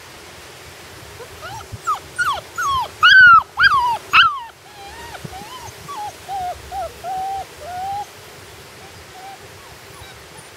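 Great Dane puppy whimpering: a quick run of high whimpers, each rising then falling in pitch and loudest about three seconds in, followed by a string of softer, lower whines that stop about eight seconds in.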